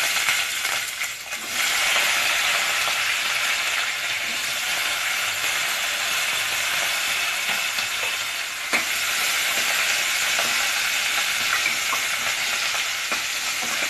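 Chopped shallots sizzling in hot oil with popped mustard and cumin seeds in a stainless steel pressure cooker: a steady frying hiss. There are a few light clicks, and near the end the scrape of a steel spoon as the shallots are stirred.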